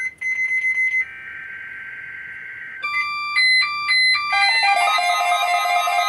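Midland weather alert radios going off for a weekly test. A raspy high electronic tone plays for the first few seconds, then rapid beeps alternate between two or three pitches. Music comes in about four seconds in.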